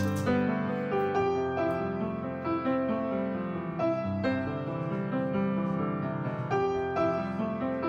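Background piano music, with notes struck one after another and left to ring.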